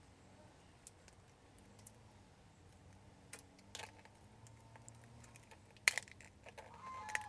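Scattered small clicks and taps of hard crab shells being handled and put into a basin, with one sharper click about six seconds in.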